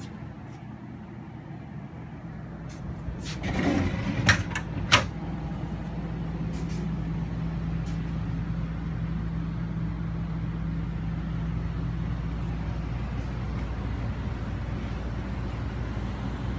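Steady hum of a motorhome's ducted air conditioning running, a little louder from about six seconds in. A few sharp knocks and clicks come just before, about four to five seconds in.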